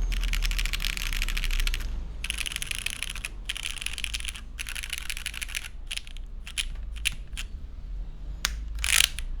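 Typing on a custom mechanical keyboard: a jjw Cloudline TKL with lubed Cherry Hyperglide Black linear switches, aluminium plate, top mount and GMK keycaps. Fast continuous typing in four runs with brief pauses, then from about six seconds in single keystrokes spaced apart, the loudest one near the end.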